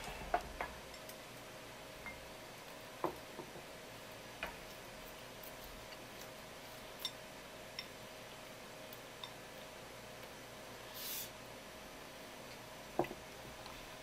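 Quiet room tone with a faint steady hum, broken by scattered light clicks and small knocks of tableware, and a brief hiss about three seconds before the end. About a second before the end comes the loudest knock, a ceramic donburi bowl set down on a wooden counter.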